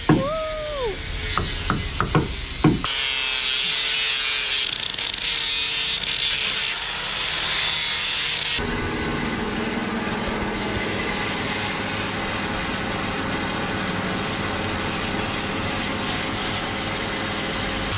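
A hand-held angle grinder with a sanding disc screeches against the edge of a wooden plank. About nine seconds in it gives way to a large bandsaw running steadily as timber is fed through it.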